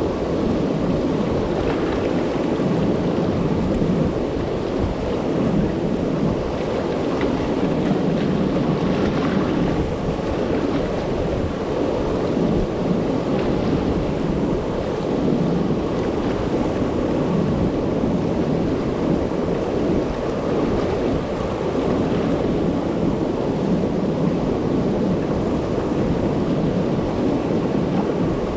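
Turbulent river water pouring over a low-head dam and churning through the rocks below it: a steady, deep rushing with no break.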